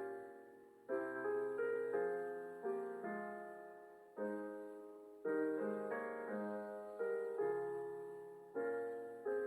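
Soft piano music: slow chords struck one after another, each note ringing and fading.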